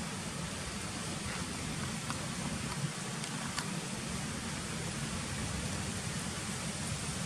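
Steady outdoor background hiss, even and unbroken, with a few faint clicks.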